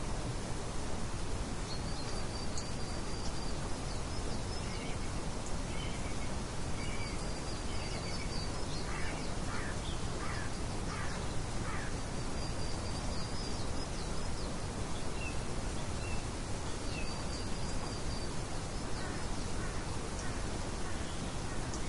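Steady wind-like noise with birds calling over it. A short high trill comes back about every five seconds, and a run of about five quick, harsher calls sounds around the middle.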